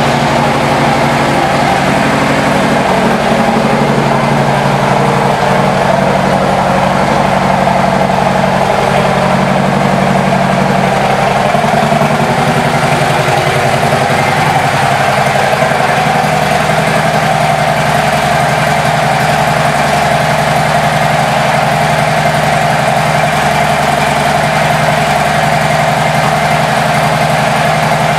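2010 Harley-Davidson Street Glide's air-cooled V-twin idling steadily through an aftermarket exhaust. The idle note shifts slightly about twelve seconds in.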